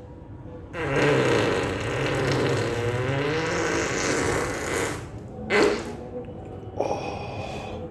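A man's long, wavering fart lasting about four seconds, followed by two shorter gassy noises, one about five and a half seconds in and one near the end.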